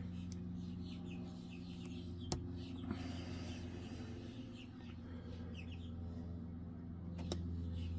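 A short-hook pick working the pins of an Ingersoll lock's Medeco core, with sharp clicks about two seconds in and again near the end. These sound over a steady low hum and scattered short high chirps.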